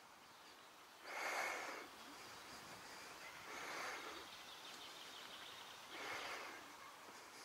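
Faint outdoor ambience with distant bird chirps, broken by three short rushes of noise about two and a half seconds apart.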